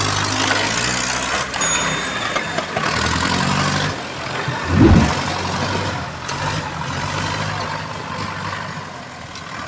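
Mahindra Arjun tractor's diesel engine running under load as it hauls a trolley full of soil. There is a brief, loud low surge about five seconds in, and the engine sound eases off near the end.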